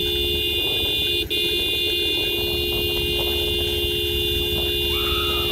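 A vehicle horn held on continuously, a steady two-note blare broken only for a moment about a second in. A short wavering higher tone joins near the end.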